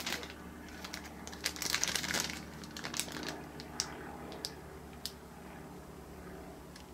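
Faint rustling and a scattered series of small clicks, the handling noise of a camera being moved about, with a denser patch of rustling about a second and a half in, over a faint steady hum.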